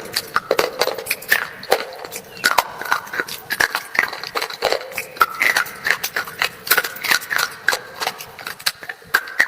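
Close-up crunching and chewing of a dry, brittle black slate bar: rapid, irregular sharp crunches and cracks, several a second.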